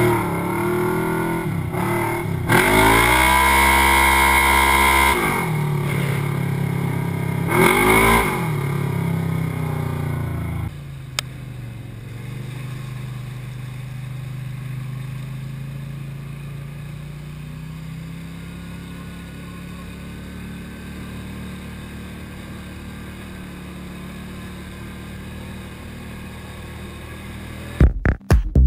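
Off-road vehicle engines: for the first ten seconds or so a loud engine revs up and back down twice. After a sudden cut a quieter engine runs steadily, its pitch creeping slowly up. Near the end electronic dance music with a heavy beat comes in.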